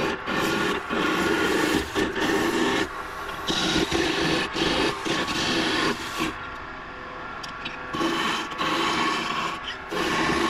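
Curved skew chisel cutting a spinning oak spindle on a wood lathe: a rough, continuous rubbing hiss as the edge peels off shavings. It comes in passes, with a few short breaks and a quieter stretch about two-thirds of the way through.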